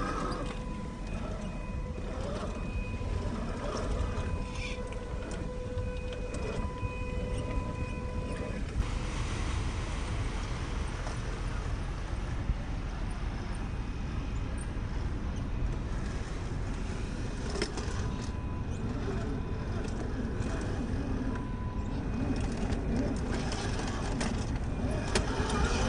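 1/10-scale Axial SCX10 II rock crawler driving over rock: its 550 electric motor and geartrain whine with a steady tone for the first nine seconds or so, then stop. Scattered clicks and knocks of tyres and stones sound over a constant low rumble.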